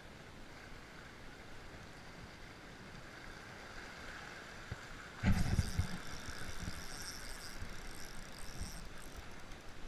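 Spinning fishing reel winding in line, with bumps of the rod being handled. About halfway there is a sudden knock, then a few seconds of louder handling noise and a high whine from the reel.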